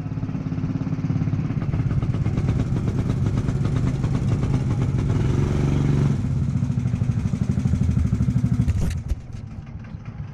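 Go-kart engine running hard with a fast, steady firing note. The pitch lifts briefly around five seconds in, then the sound drops off sharply about nine seconds in and carries on much quieter.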